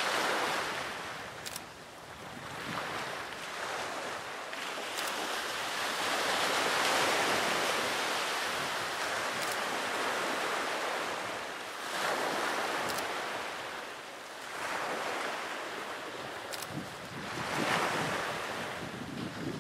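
Sea waves washing ashore, the surf swelling and falling back every five to six seconds.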